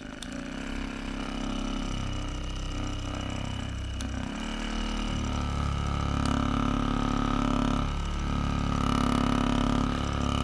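A small electric motor running steadily, its hum building over the first couple of seconds and then holding.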